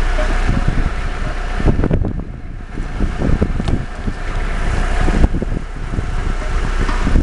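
Car cabin noise while driving: steady road and engine rumble with wind noise on the microphone, broken by a few irregular low thuds.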